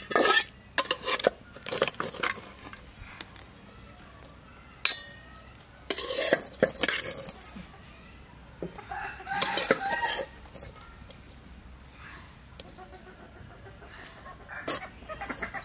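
Metal spatula scraping and knocking against a metal wok as cooked spinach is scraped out into a steel bowl, with a run of sharp clanks in the first two seconds. A rooster crows around the middle.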